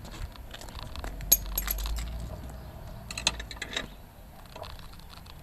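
Metal clinks and clatter of hardware being handled as a caster wheel is taken off a metal wheel attachment plate: a cluster of sharp clinks about a second in and another near the middle, over a low rumble of handling.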